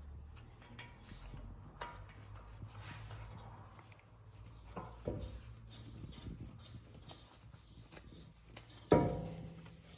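Hand work on a car's front wheel hub during a brake disc change: light scraping and small metal clicks, then a sharp metallic clank that rings briefly near the end.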